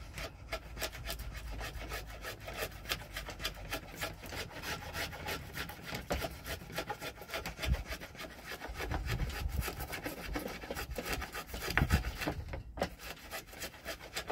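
Wood being shaped by hand with an abrasive tool: a continuous run of rapid, rough scraping strokes on the oak crook, which stops suddenly near the end.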